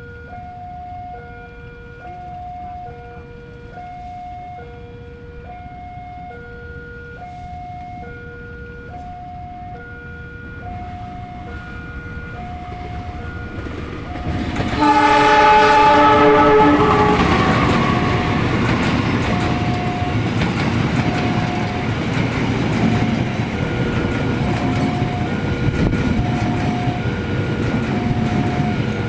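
Railway level-crossing warning alarm sounding a two-tone alternating signal, switching about twice a second. About halfway, a locomotive sounds a loud horn blast lasting two to three seconds, then a passenger train runs past with a steady rumble and wheel clatter while the alarm keeps sounding.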